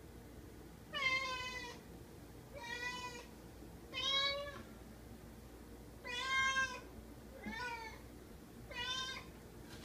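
Grey long-haired domestic cat meowing six times, about one call every second and a half.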